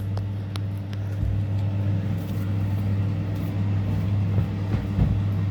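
Steady low electrical hum from a running motor or appliance, with a few faint clicks.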